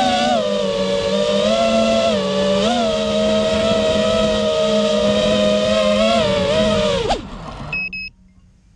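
FPV racing quadcopter's brushless motors and propellers whining close-up, the pitch wavering with short throttle blips. About seven seconds in the whine drops sharply and winds down to a stop as the quad lands, and a short electronic beep follows.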